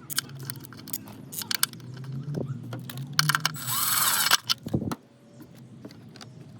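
Small parts and tools being handled by hand: a run of sharp clicks and light rattles, with a brief rasping rustle about four seconds in.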